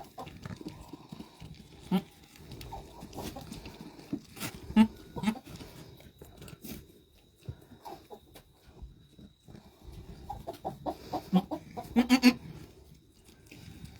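Goats bleating in short, low calls scattered through, with a quick run of calls near the end.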